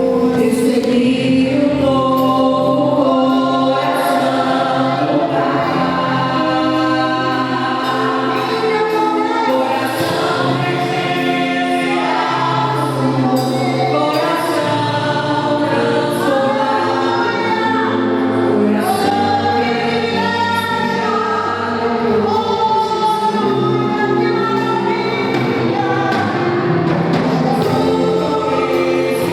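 Gospel worship group singing in chorus with band accompaniment, a continuous congregational-style worship song.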